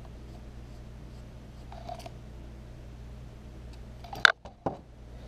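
Faint steady electrical hum with light handling of a plastic extension-cord plug as a terminal screw is loosened with a screwdriver; about four seconds in, two sharp clicks half a second apart as the plug and screwdriver are handled.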